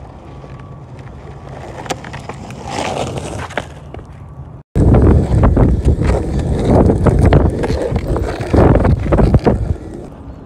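Longboard wheels rolling over rough asphalt: a steady low rumble that breaks off for a moment about halfway through, then comes back much louder and closer, with short knocks from the board.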